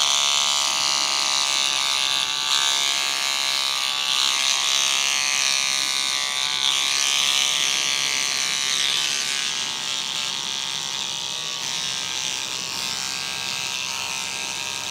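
Electric beard trimmer with a guard fitted, buzzing steadily as it cuts through a beard along the chin and neck. Its tone wavers slightly as it is pressed into and drawn through the hair, and it runs a little quieter near the end.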